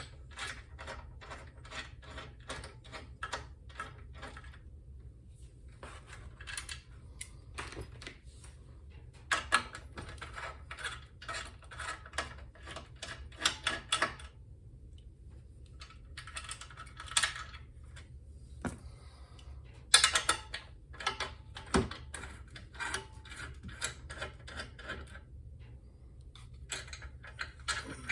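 Hand ratchet wrench clicking in several quick runs of even clicks as the treadmill motor's mounting bolts are turned out, with a couple of louder metallic knocks in between.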